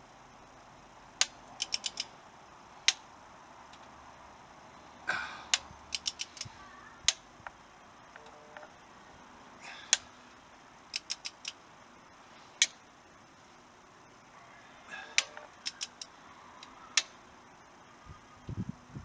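Torque wrench ratchet clicking while a cylinder head bolt is turned through its final half-turn angle-tightening stage: sharp single clicks and quick runs of three or four clicks every few seconds, with a few short scuffs of tool handling.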